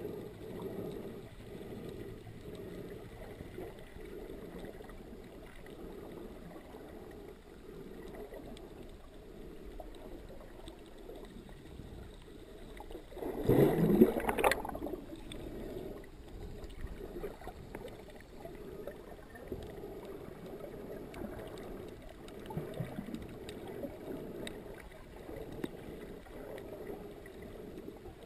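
Muffled underwater ambient noise heard through the camera's housing, with one loud burst of air bubbles rising past the microphone about halfway through, lasting around a second and a half and climbing in pitch.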